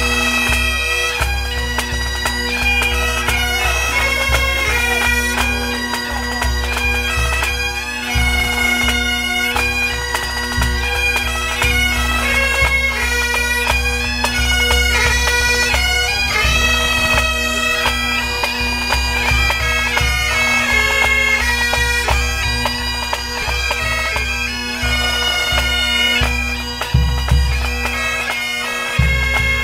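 Pipe band playing a tune: Great Highland bagpipes chanting the melody over their steady drones, with the band's drums pulsing underneath.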